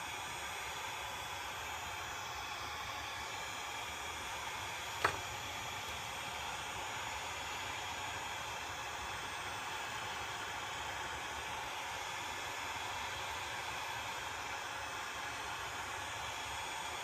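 Heat gun blowing a steady hiss of hot air, softening the adhesive under the phone's screen. A single sharp click about five seconds in.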